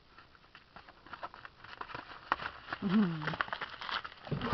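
Dogs scuffling and trotting over dry straw litter: a steady run of rustles and small clicks, with one short vocal sound about three seconds in.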